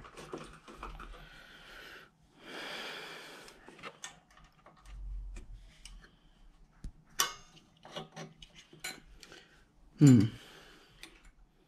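Small metallic clicks and taps of a mower carburettor's throttle and governor linkage rods and springs being worked loose by hand, with a breathy hiss about two seconds in and a short, loud sound falling in pitch about ten seconds in.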